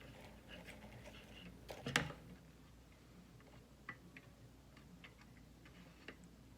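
Faint scattered clicks and ticks of hands handling wires and small tools on a wiring harness, with one sharper click about two seconds in.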